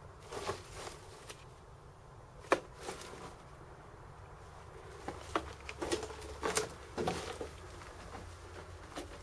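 Irregular footsteps on the littered floor of a narrow brick tunnel, with one sharp click about two and a half seconds in and steps coming closer together in the second half.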